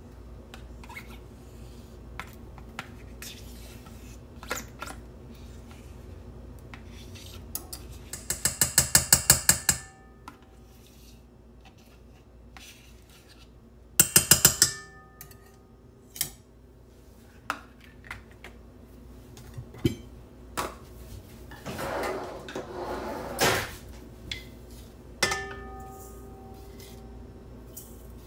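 A utensil knocking and scraping against a stainless-steel stand-mixer bowl as mascarpone is scooped in. There is a quick run of about ten taps, then a second burst of sharp taps, scattered single clicks, and a stretch of scraping. A final knock leaves the metal bowl ringing briefly.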